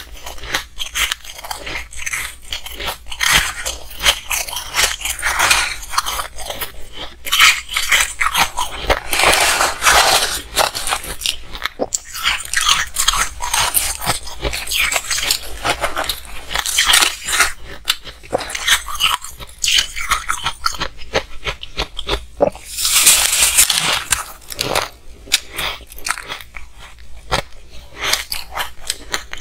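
Close-miked crunching and chewing of frosty shaved ice, a steady run of crisp crackles with louder, thicker crunches every six or seven seconds, along with the metal spoon scraping and scooping through the tub of ice.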